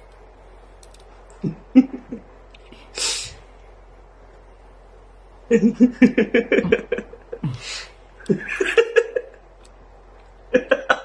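A person's laughter in quick rhythmic bursts, with a short sharp breathy hiss a few seconds in.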